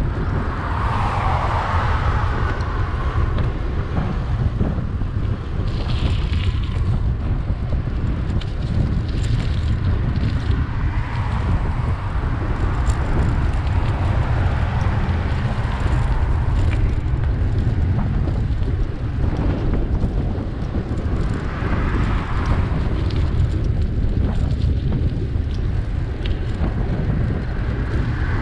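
Wind rumbling steadily on the microphone of a moving bicycle, with a few passing cars swelling up and fading away: one near the start, another a little past twenty seconds in, and one at the very end.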